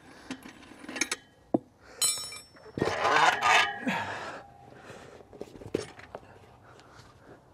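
Metal clicks and clinks from a manual motorcycle tire-changer stand as the T-handle clamp on its centre shaft is undone, with a ringing clink about two seconds in. A scraping rustle follows about three seconds in as the wheel is lifted off the stand's shaft, then only faint handling noises.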